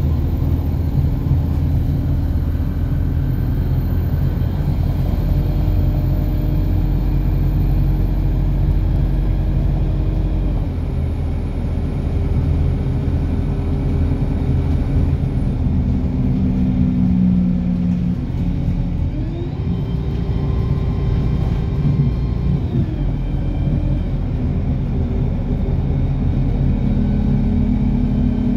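Car driving along a road, heard from inside the moving car: a steady low rumble of engine and tyre noise. The engine's hum drops in pitch about eleven seconds in and climbs again a little before twenty seconds.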